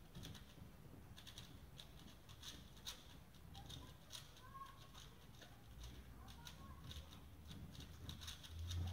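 Faint, irregular rapid clicking of 3x3 speed cubes being turned during a solve.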